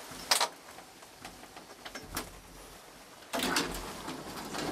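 Sounds inside a small hotel elevator car. There is a sharp click just after the start and a few faint knocks, then about three seconds in a steady rushing noise comes on and holds.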